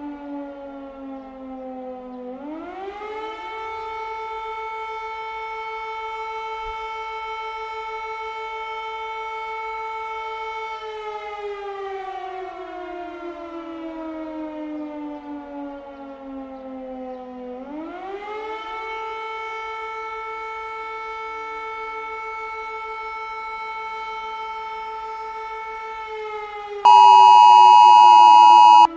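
Civil defense siren wailing: its pitch rises, holds steady for about eight seconds, falls slowly, then rises and holds again. Near the end it gives way to the much louder, steady two-tone Emergency Alert System attention signal.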